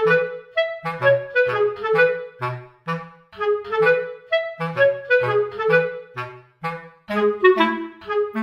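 Background music: an instrumental tune in short, separate notes over a bass line, in a steady rhythm.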